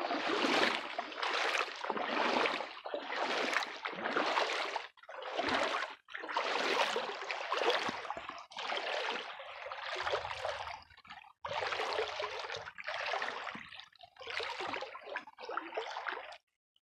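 Splashing and sloshing of water as someone wades through a shallow, swift creek, about one splash a second.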